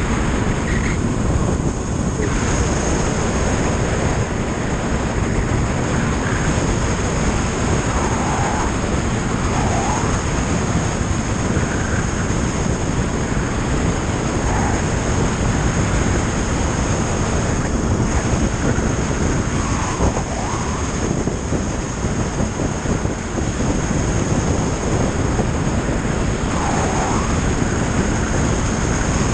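Steady rush of wind and engine drone from a motorcycle cruising at road speed, buffeting a camera mounted behind the windscreen.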